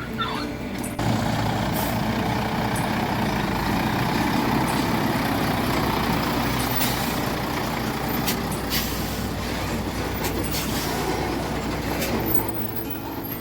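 Heavy diesel engine running steadily. It picks up and gets louder about a second in, with scattered sharp metallic clicks over it.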